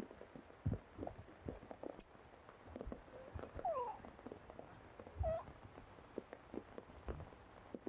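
Macaque calls: two short calls with a sliding pitch about halfway through and one more short call a second or so later, over scattered light taps and ticks.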